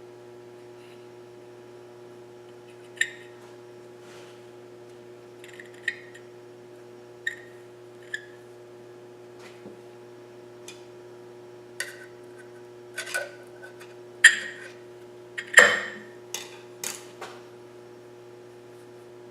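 Metal parts and hand tools clinking and knocking during hands-on assembly of an outboard lower unit's water pump, with a dozen or so short sharp clicks and the two loudest knocks in the second half. A steady electrical hum runs underneath.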